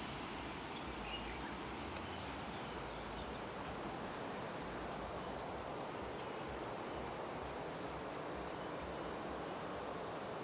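Steady rushing of river rapids on the Nile, a constant even roar of water, with a few faint chirps over it.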